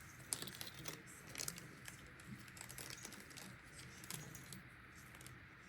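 Faint crinkling of a small plastic jewelry bag with scattered light clicks as a pair of earrings is handled and taken out.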